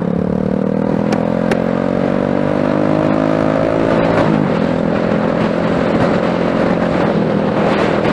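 Wolf Striker 125cc mini motorcycle engine running on its newly fitted carburetor under a ride, its note climbing in pitch as it accelerates, dropping about four seconds in, then holding steady, with wind noise on the helmet microphone.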